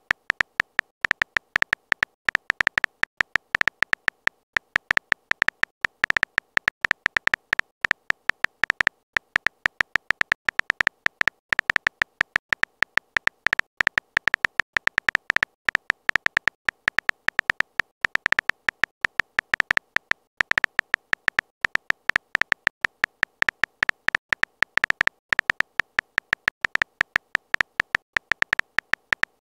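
Phone-keyboard typing sound effect: a rapid, uneven stream of short high ticks, one for each character typed into the message box.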